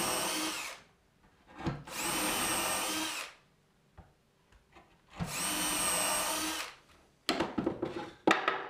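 Festool compact cordless drill drilling three holes through a template into a plywood cabinet panel. Each run lasts about a second and a half, with the motor speeding up, holding and winding down, and the bit is depth-set so it does not go through the panel. A few knocks and clatter follow near the end as the drill is set down.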